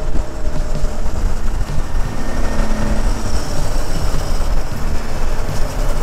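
Motorcycle riding at speed through a road tunnel: steady wind rush on the microphone over engine and road rumble.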